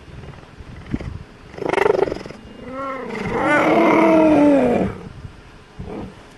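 Cheetahs meowing at close range. A short rough, noisy sound comes about two seconds in, then a brief call, then one long meow that sinks slightly in pitch; the long meow is the loudest sound and ends about five seconds in.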